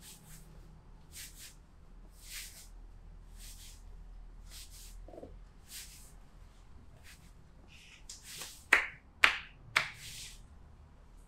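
Hands massaging a back: a soft swish of palms sliding over skin about once a second, then three sharp slaps on the back about half a second apart near the end.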